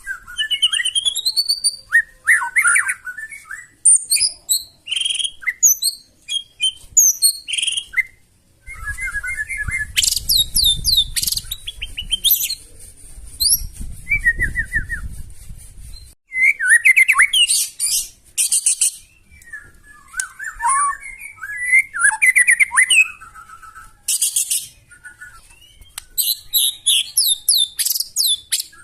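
White-rumped shama (murai batu) singing a loud, varied song of rapid trills, rattles and high sweeping notes, delivered in short bursts with brief pauses. A low rumble sits under the song from about a third of the way in to past the middle.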